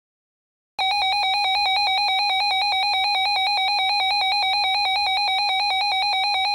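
RadioShack 12-254 weather radio's alert alarm sounding: a loud, rapidly pulsing electronic beep that starts abruptly about a second in and holds steady, the radio's signal that a coded emergency alert (here a child abduction emergency) has been received.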